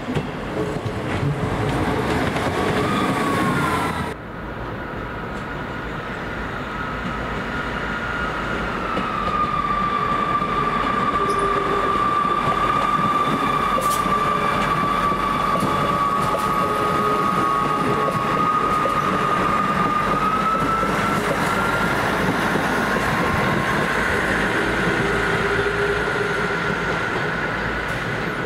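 A train at a station platform, with a whining tone over its rumble that dips in pitch, holds steady for a while, then climbs again near the end. The sound changes abruptly about four seconds in.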